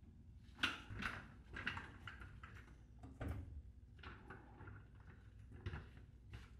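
Commercial laundromat tumble dryer doors being handled: several short clunks and clicks of the round glass doors and their latches, scattered irregularly.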